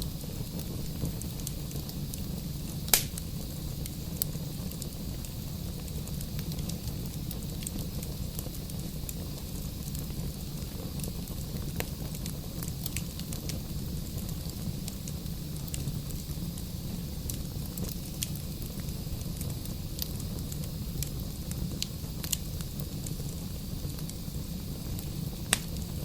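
Wood fire burning in a fireplace: a steady low rumble of flames with scattered crackles and pops of the burning logs, the loudest pop about three seconds in and another near the end.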